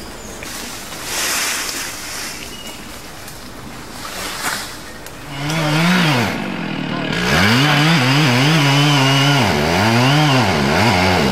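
A chainsaw engine comes in about halfway through, then revs up and down repeatedly, its pitch rising and falling with the throttle. Before it there are a few seconds of hissing noise with a couple of louder swells.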